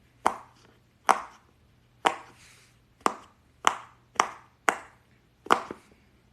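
A fidget popper toy is pressed repeatedly, giving about eight sharp pops at uneven intervals of roughly one per second.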